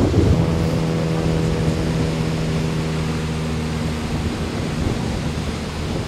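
Surf breaking on a beach with wind rumbling on the microphone. A steady motor hum sits over it from just after the start and dies away after about four seconds.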